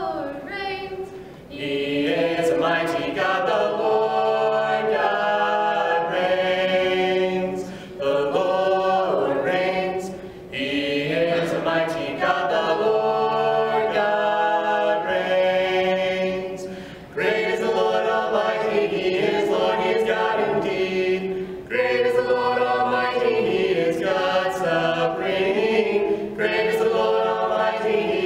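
Mixed vocal quartet, two male and two female voices, singing a cappella in four-part harmony, in sustained phrases with short pauses between them.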